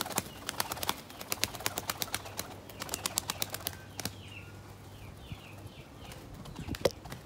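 A Turkish tumbler pigeon's wing beats as it climbs away, a fast run of wing clicks, about five a second, fading out over the first four seconds. Small birds then chirp high and brief in the background, with a single knock near the end.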